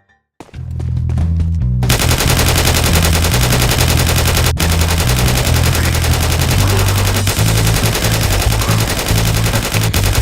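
Sustained rapid automatic gunfire, with shots following one another very fast and evenly, starting about half a second in and running almost to the end with a brief break near the middle. Background music with a stepping bass line plays underneath.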